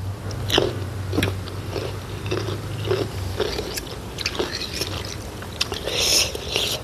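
A person chewing a mouthful of food close to the microphone, with many small mouth clicks and bites; a short hiss near the end.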